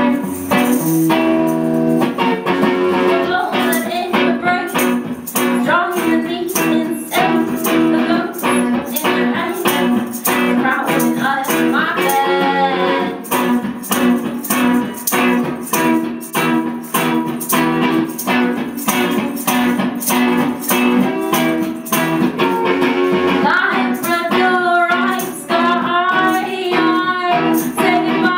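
Band music: a guitar strummed in a steady rhythm, with a singing voice that comes in near the middle and again toward the end.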